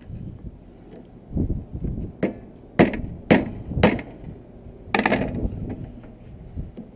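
Metal tool striking and knocking on a brass water-heater valve while a pressed-in part is worked loose: a few dull knocks, then five sharp strikes about half a second apart.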